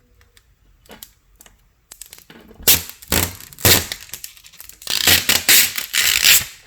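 Crinkling and tearing sounds of packaging being handled: a few light clicks at first, then louder, irregular crackling and crinkling from about three seconds in.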